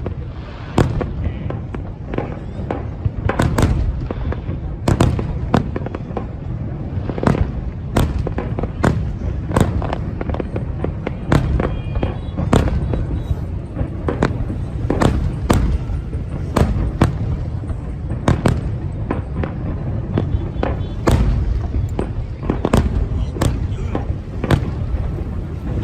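Fireworks display: aerial shells bursting in quick, irregular succession, sharp bangs over a continuous low rumble of booms.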